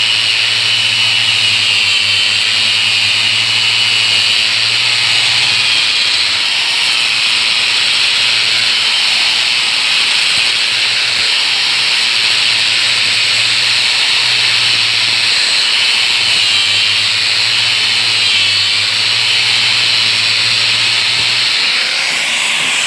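Angle grinder with a sanding disc running steadily against a surface, a continuous high whine and hiss.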